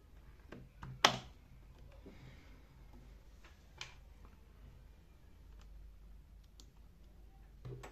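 A few sharp clicks over a faint steady low hum, the loudest click about a second in and a lighter one a little before the four-second mark.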